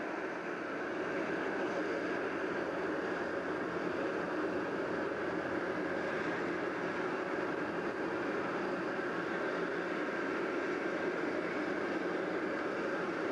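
Steady, unbroken mechanical rushing noise with no breaks or changes, the sound of machinery running at a hoverport.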